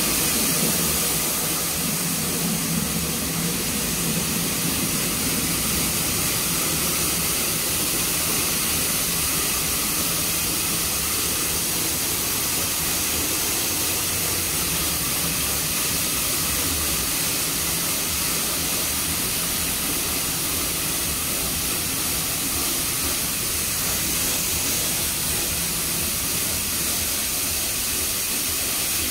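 Petit Accutrac 360-I touchless car wash spraying a car from its overhead gantry arm: a steady hiss of water jets, with a low rumble underneath.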